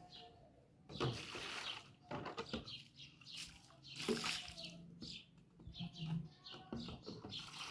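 Water splashing and sloshing in plastic basins as they are rinsed and tipped out, in irregular bursts with knocks of the plastic, the biggest splash about four seconds in. Faint bird chirps in the background.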